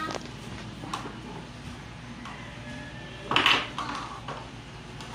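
Wooden toy blocks knocking and clattering on a tabletop as they are handled, with a few light knocks and one louder clatter a little past three seconds in.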